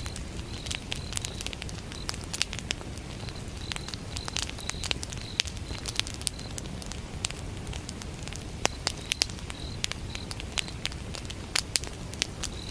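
Wood fire burning, with frequent sharp crackles and pops over a low rumble of flames, and crickets chirping in short repeated bursts.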